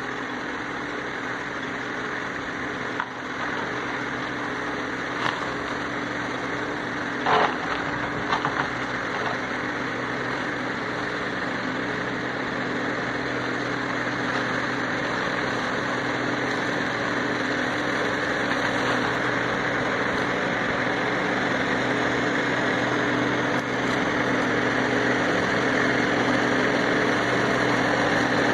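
New Holland 7630 tractor's diesel engine running steadily while its Lavrale articulated side-arm mower cuts roadside brush, the sound growing louder as the tractor comes closer. A few sharp knocks stand out in the first third, the loudest about seven seconds in.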